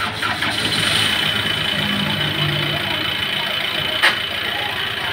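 The odong-odong tourist train's engine runs steadily as the vehicle sets off. There is a sharp click about four seconds in.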